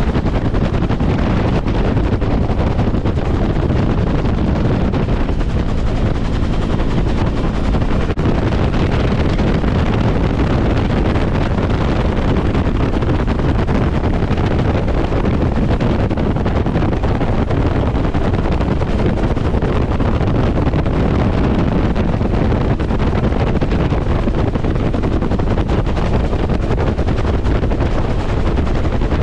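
Bell UH-1 Huey helicopter in steady cruise, heard from inside its open-sided cabin: a loud, unbroken mix of turbine and two-bladed main rotor noise, with wind rushing over the microphone.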